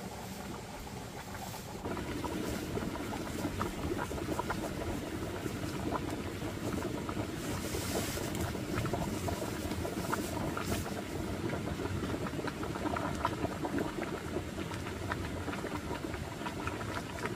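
Large pot of water boiling steadily on a wood-fired brick stove, bubbling with scattered small pops. A brief hiss comes about eight seconds in as bran pours in from a sack.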